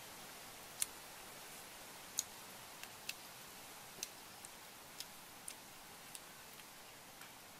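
Faint close-up eating sounds of a person chewing cooked duck meat: a dozen or so sharp mouth clicks and smacks at uneven spacing, over a steady hiss.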